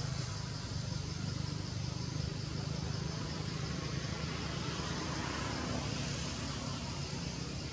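Steady outdoor background noise: a constant low rumble with an even high hiss above it, no distinct events.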